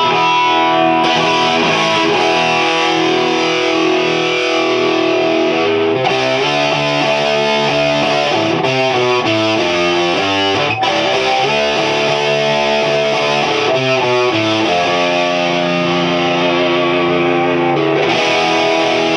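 Electric guitar played loud through a valve amplifier: a Gibson Les Paul with P90 pickups into a 100-watt Hiwatt DR103 clone head and a four-speaker Eminence Tonkerlite cabinet. It plays sustained, crunchy overdriven chords that change every few seconds.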